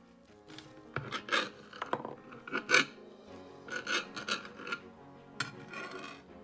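Serrated bread knife sawing through a baked pizza's crust in a series of back-and-forth strokes, the loudest about two and a half seconds in, over quiet background music.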